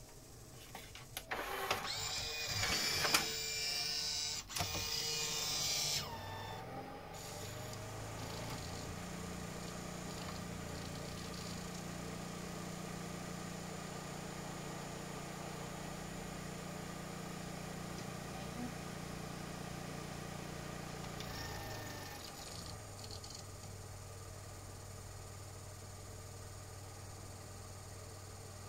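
Pioneer CLD-2950 LaserDisc player's mechanism running. A few seconds of louder whirring and rubbing with gliding pitches give way to a steady low motor hum for about fifteen seconds. A few clicks follow, then a lower steady hum.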